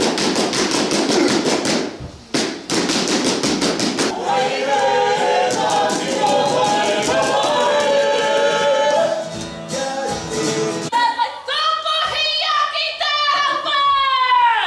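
Maori poi dance: a quick run of sharp taps as the poi balls strike the performers' hands and bodies. From about four seconds in, a group sings over the tapping. Near the end a single high voice takes over, its pitch falling at the close.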